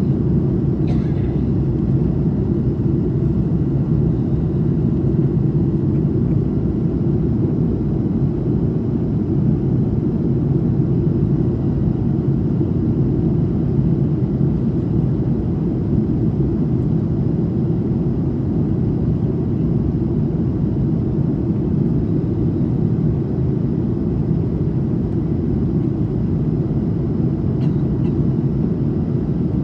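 Steady cabin noise of an Airbus A220 in its climb: a constant low rumble of the engines and airflow.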